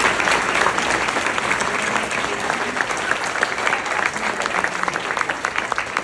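A roomful of people applauding, with one pair of hands clapping close by. The applause thins out near the end into separate claps.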